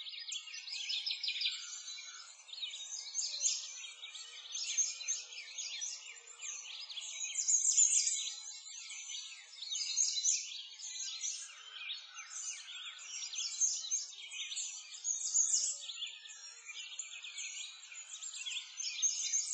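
A dense chorus of many birds chirping and singing at once, with quick high calls overlapping and swelling and fading every second or two.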